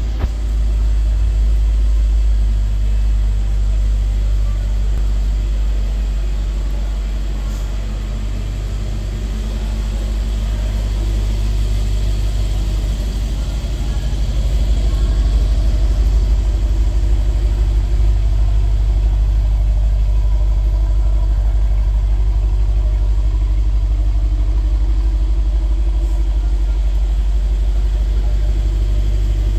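2019 Mercedes-AMG GT 63's twin-turbo V8 idling steadily, a little louder from about halfway through.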